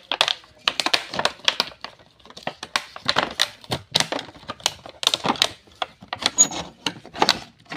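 Stiff clear plastic packaging crackling and snapping as it is pulled open by hand: a quick, irregular run of sharp clicks and crinkles.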